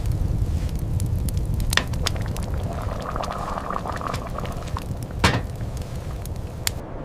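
A steady low rumble of wind, with scattered sharp cracks and clicks over it; the two loudest come about two seconds in and about five seconds in.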